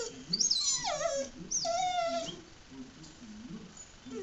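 Dog whining twice, two high-pitched whines that slide down in pitch, the second settling and holding briefly. The dog is reacting to another dog shown on a screen.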